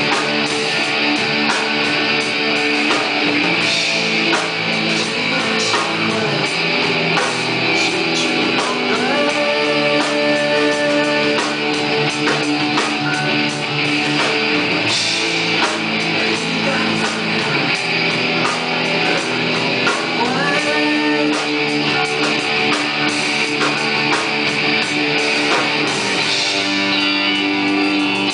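A rock band playing live: electric guitars over a drum kit, with frequent cymbal and drum hits.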